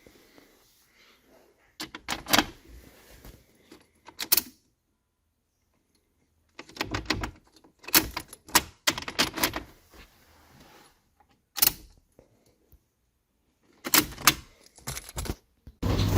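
Sharp clicking and light clattering of small hard objects being handled, coming in several short clusters with quiet gaps between them. A louder steady noise starts near the end.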